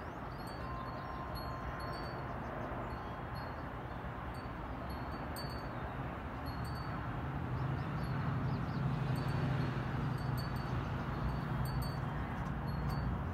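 Empty cat food cup batted about by kittens on a concrete step, giving scattered light clicks and tinkling clatters. A low hum swells in the background from about halfway.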